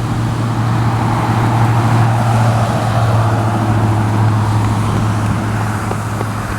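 Road traffic passing: steady tyre and engine noise over a low hum, swelling about two seconds in and easing off, with no horn.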